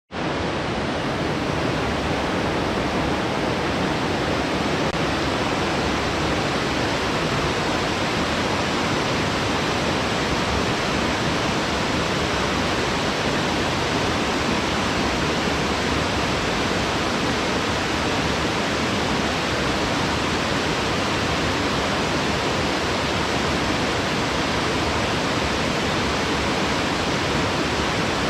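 Waterfall pouring into a wide plunge pool: a steady, even rush of falling water with no change in level.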